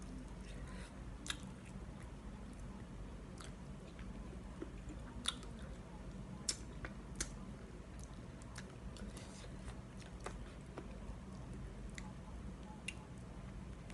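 Close-up eating sounds of gnawing and chewing braised chicken feet: wet lip smacks, sucking and sharp clicks of teeth on bone scattered irregularly, over a low steady background hum.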